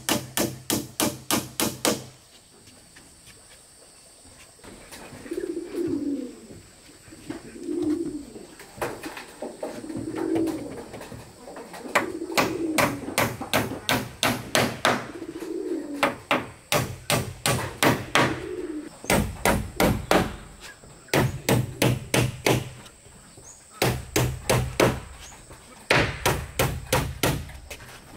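A hammer strikes wood in fast runs of blows, about five a second. The runs stop for a few seconds soon after the start, then come back in bursts through the second half. In the middle a dove coos over and over, a low call about every two seconds.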